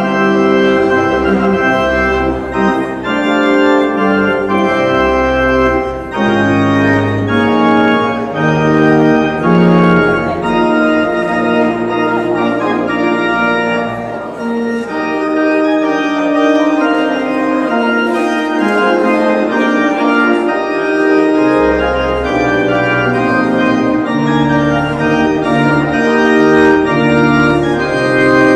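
Organ playing a postlude of long sustained chords over a deep bass line. The bass drops out for several seconds in the middle, then comes back about three-quarters of the way through.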